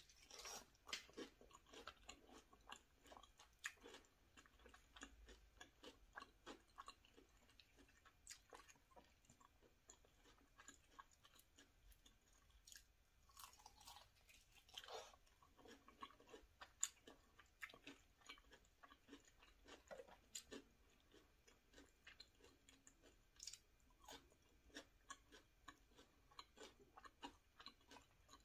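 Close-miked chewing and crunching of Cheeto-crusted fried chicken drumsticks: a steady, irregular stream of small crisp crackles and clicks as the crust and meat are bitten and chewed.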